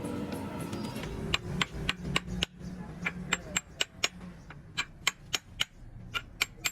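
A hammer tapping on metal engine parts, sharp ringing taps three or four a second in an uneven rhythm, starting about a second in.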